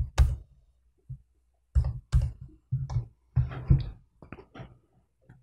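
Computer mouse being clicked and moved on the desk: a string of irregular short clicks and soft thumps, most of them bunched in the middle.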